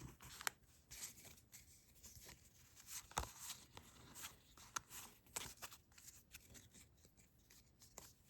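Faint rustling and scattered light clicks of Pokémon trading cards and their pack wrapping being handled, with one sharper tick about three seconds in.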